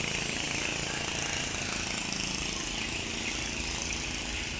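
A steady engine drone with hiss, with no distinct knocks or changes.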